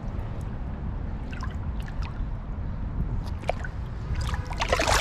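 Water splashing and trickling as a largemouth bass is let go back into the river, in several small splashes with the biggest near the end, over a steady low rumble.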